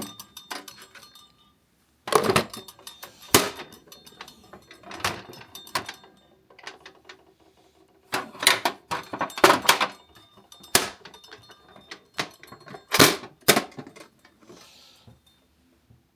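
Irregular handling noise of tools and packaging: clusters of sharp clicks and knocks with rustling between them, dying away near the end.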